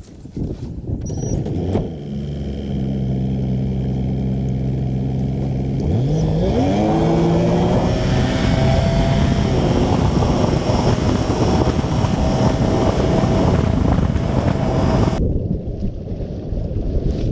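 Bass boat's outboard motor running at low speed, then throttled up about six seconds in, its pitch rising and leveling off as the boat runs at speed with a rush of wind and water. Near the end the high rushing hiss drops away abruptly.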